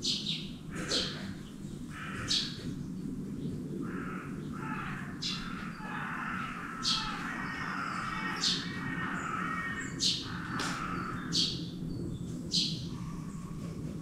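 A woodpecker calling: a single short, sharp, high note repeated about every second or two. A lower, busier bird chatter runs through the middle, over a steady low hum.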